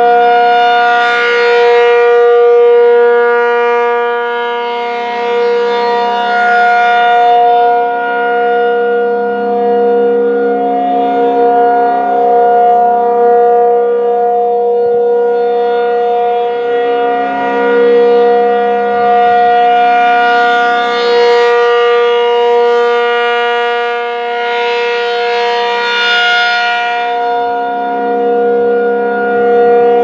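ACA P-50 rotating outdoor warning siren sounding a steady-pitched chord, the alert signal rather than the wailing attack signal. Its loudness and brightness swell and fade repeatedly as the turning horn sweeps toward and away from the listener.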